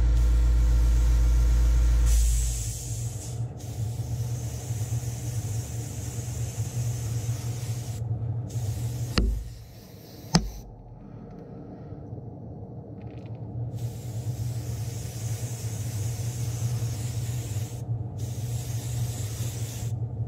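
Airbrush spraying in several short passes, a hiss that starts and stops, over a steady hum from the spray booth. A deep rumble stops about two seconds in, and two sharp clicks come about nine and ten seconds in.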